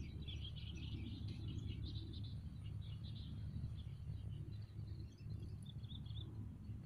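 Small birds chirping and twittering over a steady low rumble of outdoor background noise.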